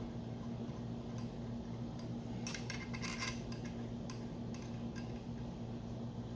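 Light metallic clinks of bolts and hand tools being handled while timing-gear bolts are fitted, in a quick cluster about two and a half seconds in and a few single clicks later, over a steady low electrical hum.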